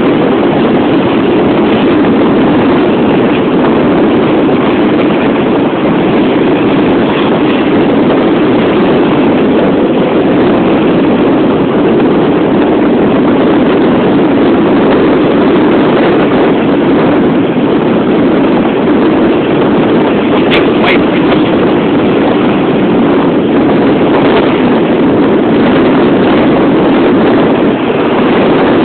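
Storm wind buffeting the phone's microphone in a loud, steady roar, mixed with rough sea surging and breaking against a stone harbour wall.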